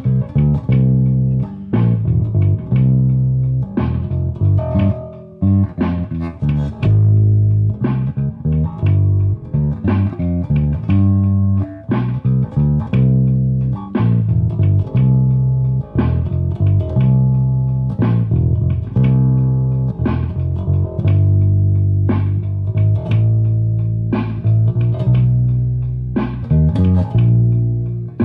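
Electric bass guitar played fingerstyle: a bass line of plucked notes, each ringing briefly before the next.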